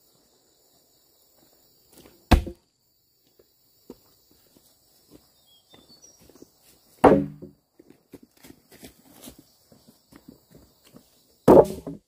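Three heavy chopping strikes of a hand tool, about four and a half seconds apart, each with a short dull ring, and faint scraping and rustling between them.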